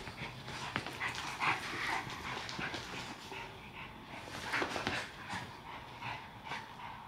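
Two Staffordshire bull terriers, a puppy and an adult, playing tug-of-war over a toy: irregular panting and breathy play noises, with scattered short knocks and scuffles.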